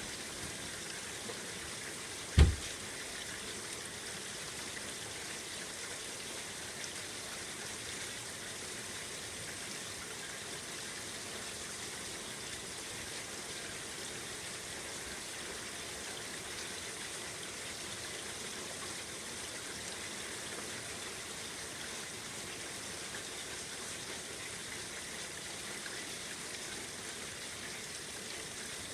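Steady rain falling. About two and a half seconds in, a single loud, low thump from a screen door.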